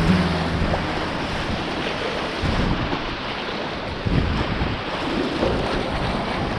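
Rushing river water around a kayak, with wind buffeting the microphone in uneven gusts.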